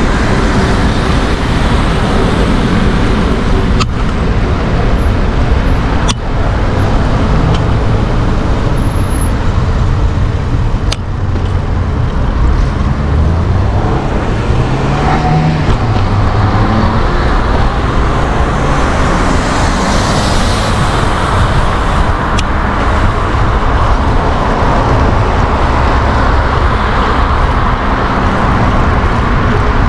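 Busy city street traffic, a steady loud rumble of passing motor vehicles heard from a moving bicycle. About halfway through, an engine's pitch rises as a vehicle accelerates past. A few sharp knocks are scattered through.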